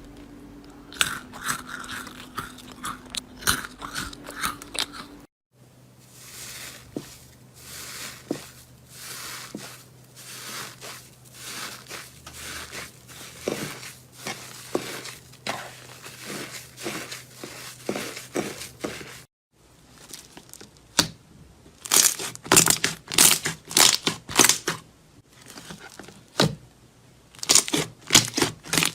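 Close-up crunching and crackling of ASMR slime and soap being handled, in three short clips split by brief gaps. The last clip has the loudest, sharpest crunches.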